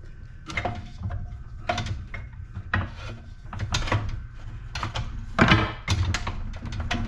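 Irregular knocks, clicks and clatter of metal light-fixture parts being handled and worked apart by hand, with a louder cluster of knocks about five and a half seconds in.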